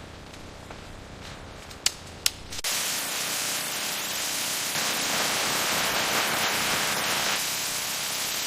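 Two sharp clicks, then a steady hissing noise that starts abruptly and runs on evenly.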